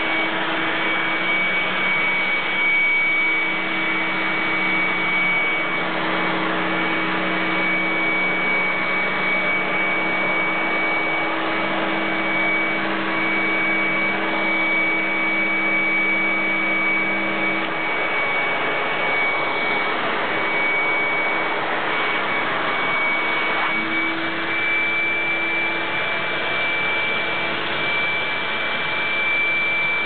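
Old Panasonic canister vacuum cleaner running steadily, screaming: a high-pitched whine held over the rush of its motor and airflow, with lower hum tones that shift a little now and then.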